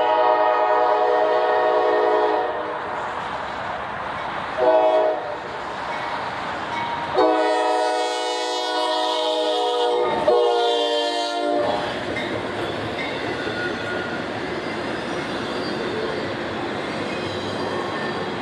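Norfolk Southern AC44C6M diesel locomotive's multi-chime air horn sounding for a grade crossing: a long blast, a short one, then a long one broken briefly near its end. The locomotive and doublestack intermodal cars then roll past with a steady rumble and wheel clatter.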